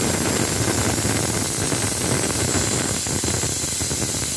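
Nirlon tri-ply stainless steel pressure cooker giving its first whistle: steam hissing out steadily under the lifted weight valve. The hiss is the sign that full pressure has built up inside.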